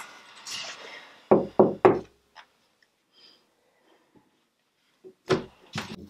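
Three quick knocks on a door about a second in, then two more knocks or thuds near the end as the door is opened.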